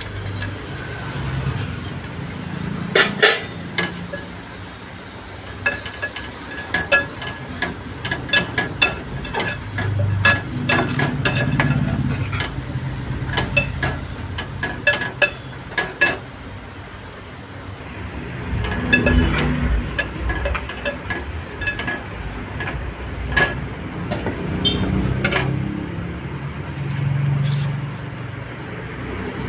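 Steel utensils clinking, tapping and scraping against an aluminium pressure cooker as ingredients are tipped in from a steel bowl and stirred with a steel spatula: irregular sharp clinks in clusters, over a low rumble.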